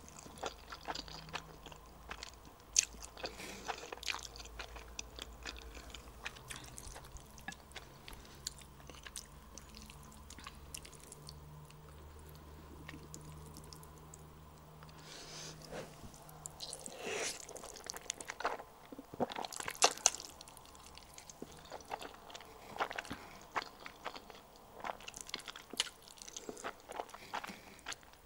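Close-miked eating sounds: black bean noodles (jjajangmyeon) being slurped and chewed, with many small wet mouth clicks and smacks and louder stretches a little past the middle.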